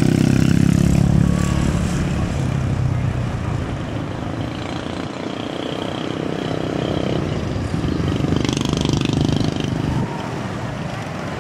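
Motorcycle and car engines running close by. One engine is loud at first and fades away in the first couple of seconds, leaving a steady mix of traffic noise.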